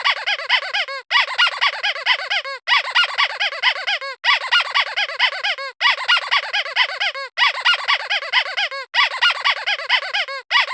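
Squeaky squeeze toy squeezed rapidly over and over, several squeaks a second, each rising and falling in pitch. The squeaks come in runs of about a second and a half, broken by brief gaps.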